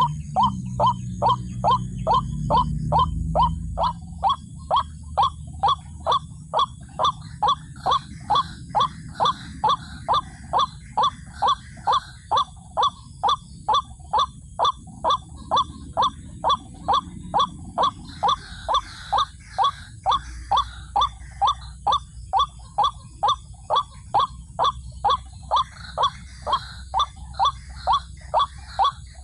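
White-breasted waterhen's call repeated evenly, about twice a second, as a lure call for trapping. A low rumble underlies the first few seconds.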